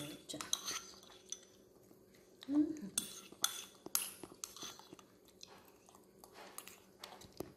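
Metal spoon clinking and scraping against a ceramic bowl as food is scooped, in scattered short clicks.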